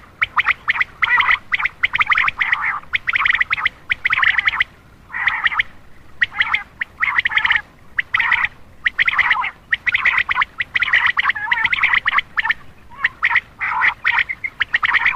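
Quail calling in repeated bursts of rapid, harsh chattering notes, each half a second to a second long with short gaps between: a lure call meant to draw in male quail.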